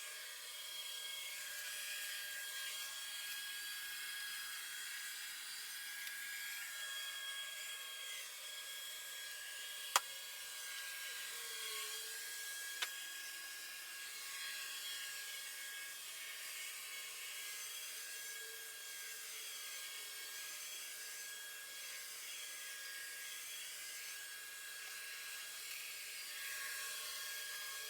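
Robot vacuum cleaner running, a steady high motor whine over a hiss of suction and brushes. Two sharp clicks break in, about ten and thirteen seconds in.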